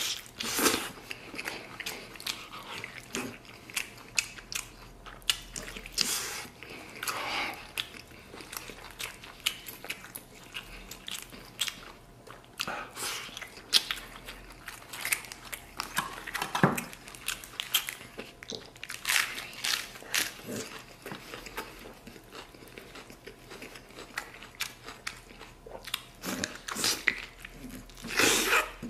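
A man biting, tearing and chewing meat off a large braised beef rib, held by the bone, in many short, irregular bursts.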